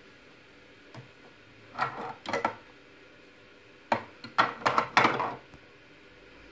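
Small plastic toy figures and dollhouse furniture knocking and clattering against the plastic dollhouse as they are moved about: a few taps about two seconds in, then a quicker run of sharper knocks around four to five seconds in.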